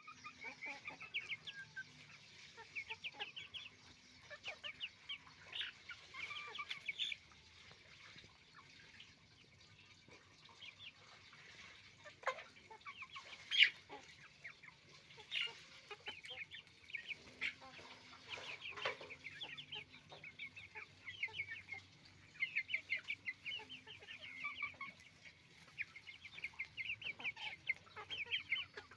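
A flock of chickens clucking and calling in runs of short, rapid notes, with quieter stretches between, and one sudden louder sound about halfway through.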